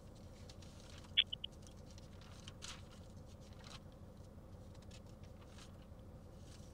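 Quiet pause on a phone call: faint line hiss with scattered soft clicks, and a brief high chirp-like blip about a second in.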